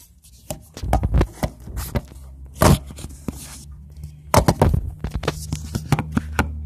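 Handling noise from a phone camera being gripped and moved: fingers rubbing and knocking on the device in quick irregular clicks and thumps. A steady low hum sets in about a second in and runs underneath.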